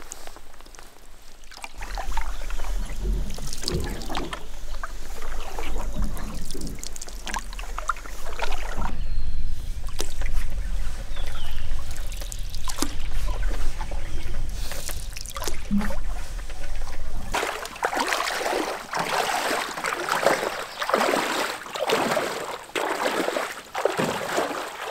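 Canoe paddle strokes in calm water, the blade dipping and water trickling off it, over a low rumble. About two-thirds of the way through this gives way to a steady run of splashing steps as someone wades through shallow floodwater in tall rubber boots, the canoe sloshing alongside.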